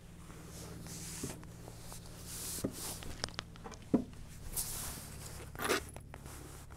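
Jacket rustling and a few light clicks and knocks from handling a scoped bolt-action .22 rifle on a bench rest while settling in to shoot. The sharpest knock comes about four seconds in, and there is a brief scraping rustle near the end.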